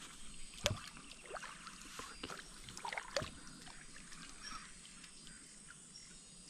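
Faint water sounds around a fishing kayak with scattered light knocks and clicks, the sharpest about a second in and another near three seconds.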